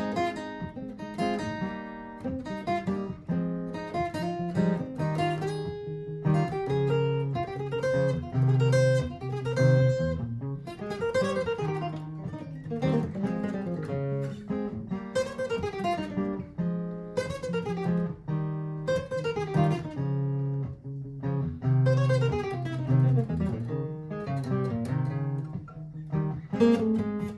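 Martin GPCPA4 acoustic guitar: a looped strummed chord progression repeats underneath while improvised single-note runs rise and fall over it.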